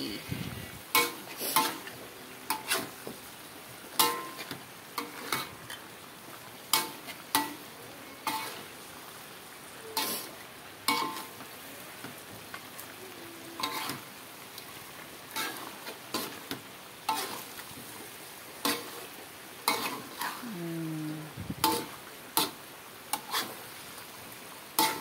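Metal utensil scraping and knocking against an aluminium wok as fish pieces are stirred through curry paste, in irregular clacks about once a second over a steady sizzle of frying.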